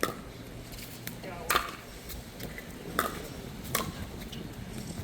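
Pickleball rally: paddles striking the hollow plastic ball, four sharp pops, the first three about a second and a half apart and the last two closer together.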